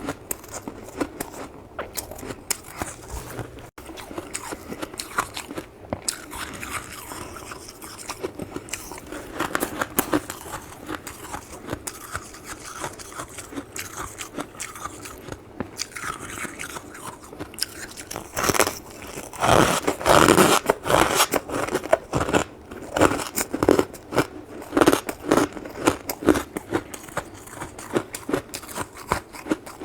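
Close-up crunching and chewing of powdery freezer frost (snow ice) as it is bitten and eaten, a steady run of crisp crackles that turns into louder, heavier bites and chews about two-thirds of the way in.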